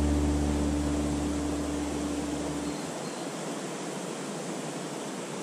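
The last low notes of background music fade and stop about two-thirds of the way through, over the steady rush of a mountain stream.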